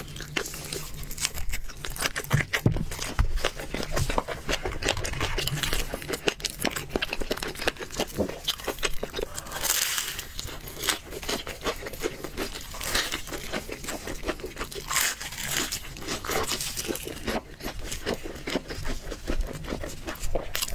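Close-miked eating of crispy-skinned chicken: bites and steady chewing crunch through thin, crisp skin. There is a louder run of crunching about ten seconds in, as he bites into a piece of fried chicken.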